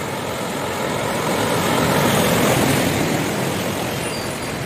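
A car driving through floodwater, its tyres pushing up a wave of water. The splashing swish swells as it passes about two seconds in, then fades.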